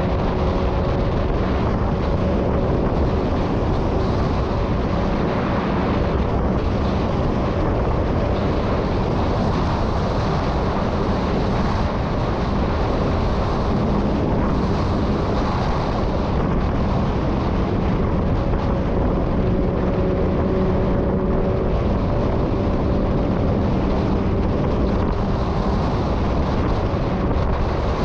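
Motorcycle cruising at steady road speed: a steady engine note under heavy wind rush on the microphone.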